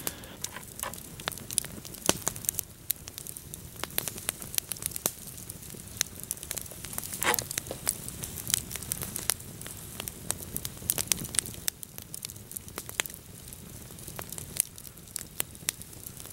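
Wood campfire crackling, with many sharp, irregular pops and snaps over a low hiss.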